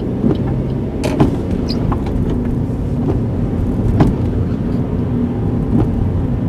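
Car interior noise while driving: the engine running and tyres on the road make a steady low rumble, with a few sharp knocks, the loudest about a second in and about four seconds in.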